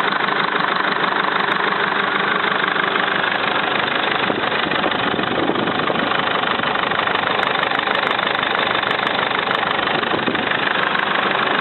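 Mercedes-Benz Sprinter engine idling steadily with a rapid, unusual knock heard from the turbocharger side. The owner thinks it sounds like the hydraulic lifters, but the cause is unknown.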